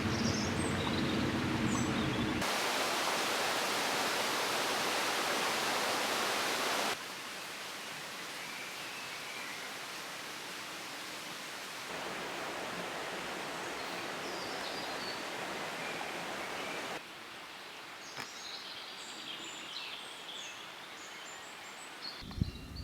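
Steady rushing water of a stream or small waterfall, its level jumping at several cuts, with birds chirping, mostly near the end.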